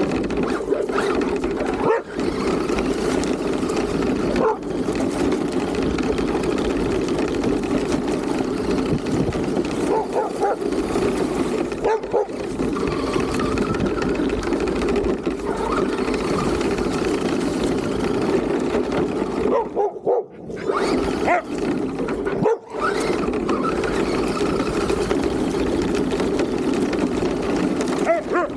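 RC car's drivetrain running as it drives over leaf-covered dirt, heard from on the car, a steady whirring noise that cuts out briefly several times. Dogs chasing it yip and bark now and then.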